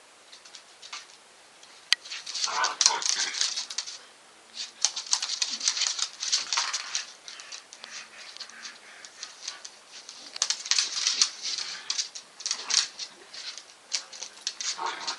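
A Staffordshire bull terrier and a Jack Russell terrier play fighting: rapid clicking and scrabbling of claws on a wooden floor, coming in bursts from about two seconds in.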